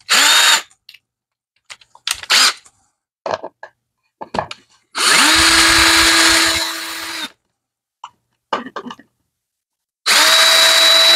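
Cordless drill boring into a wooden post in several runs: two brief spin-ups near the start, a steady run of about two seconds about 5 s in, and another starting about 10 s in. Small handling clicks fall between the runs.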